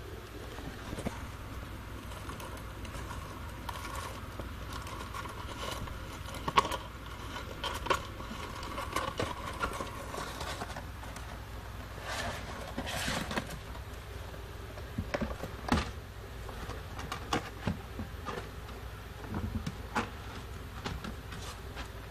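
Irregular rustling, scraping and light knocks of a cardboard tissue box being pushed and lifted over pellet bedding in a plastic tub, with a steady low hum underneath.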